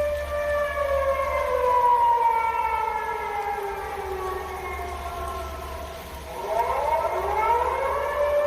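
Outdoor tornado warning siren blaring. Its pitch slides slowly down over about five seconds, then sweeps quickly back up to a steady high tone near the end.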